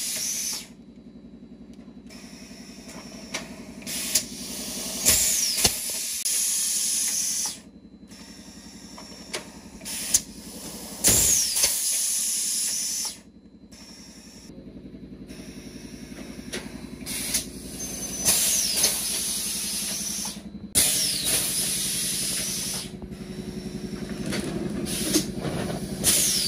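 Pneumatic PET bottle blow moulding machine cycling: sharp clunks of the mould clamp and valves, then long hissing blasts of compressed air as preforms are blown and the air is let out. This comes round about every six or seven seconds over a steady machine hum.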